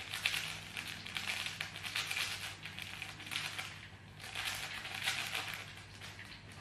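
Small foil instant-noodle seasoning sachet being crinkled and squeezed open by hand: dense, irregular crackling that eases off briefly about four seconds in, then picks up again.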